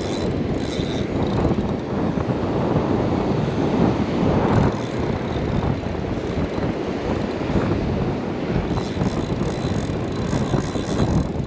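Steady wind buffeting the microphone over breaking surf. From about three quarters of the way in, a spinning reel's drag ticks rapidly as a hooked fish runs and strips line.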